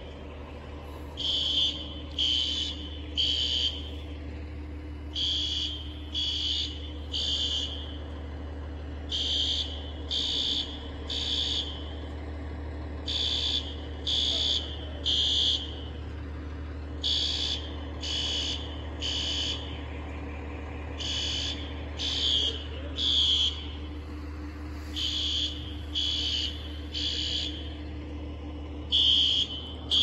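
Apartment building fire alarm sounding the temporal-three evacuation pattern: three high beeps in a row, then a pause, repeating about every four seconds. A steady low hum runs underneath.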